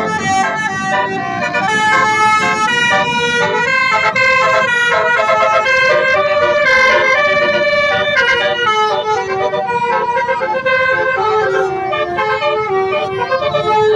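An Indonesian bus's 'telolet' multi-tone air horn playing a melody, a string of held notes stepping up and down in pitch with several tones sounding together.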